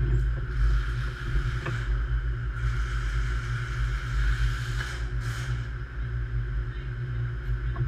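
A train standing at a station platform, its running equipment giving a steady low rumble with a constant hum, and a few stretches of hiss about a third and two thirds of the way in.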